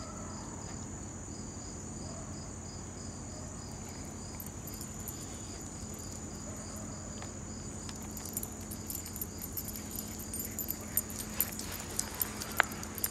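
Crickets chirping in a steady pulsing rhythm, with a thin steady high tone above them. In the last few seconds there is a scatter of sharp clicks and taps, the loudest near the end.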